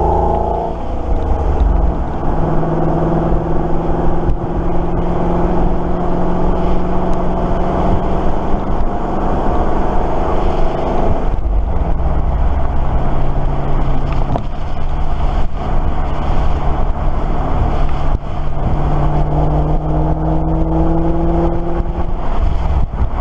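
Exhaust note of a 2013 Dodge Challenger SRT8's 392 (6.4-litre) Hemi V8 through a Mopar-branded Corsa Sport exhaust, heard from beside the rear of the moving car. The engine holds a steady note, dips briefly about eleven seconds in, then rises in pitch near the end.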